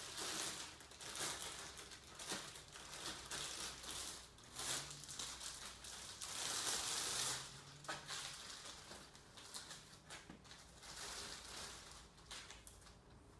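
Plastic packaging rustling and crinkling in irregular bursts while a cricket bat is handled, with the longest and loudest rustle about six seconds in.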